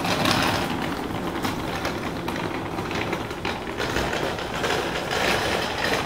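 Wheels of a rolling suitcase rattling steadily over a paved street, fading gradually as the suitcase is pulled away.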